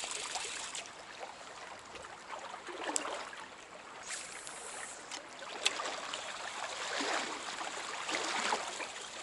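Running stream water, with swells of splashing and a few sharp ticks.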